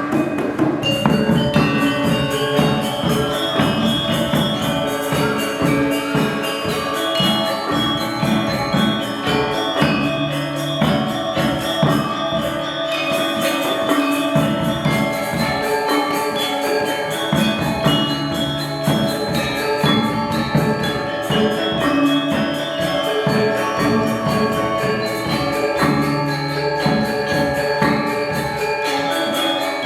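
Balinese gamelan gong ensemble playing: bronze metallophones and gongs struck with mallets in fast, interlocking patterns.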